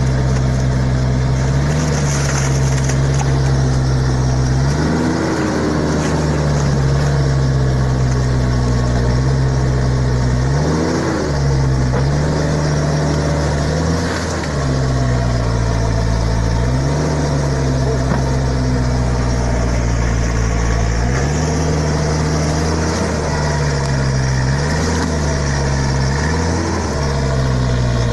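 Heavy-equipment engine running under work, its speed stepping up and falling back again and again as the machine is worked.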